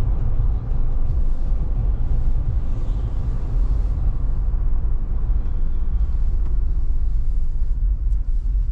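Steady low rumble of a Jeep driving along a road, heard from inside the cabin: engine and tyre road noise.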